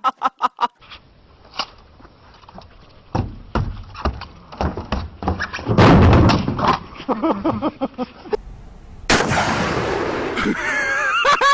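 Gunfire from several short clips: a quick run of shots at the start, then scattered shots with a heavier blast about six seconds in. A person's voice is heard near the end.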